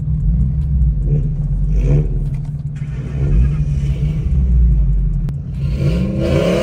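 Car engines rumbling low, with revving that rises in pitch near the end and one sharp exhaust pop about five seconds in.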